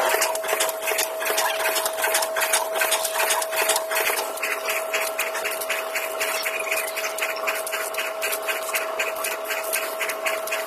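Automatic packing machine running, heard at five times normal speed: a fast, dense clatter of mechanical strokes over a steady tone. About four seconds in the pattern changes to a more even, regular beat.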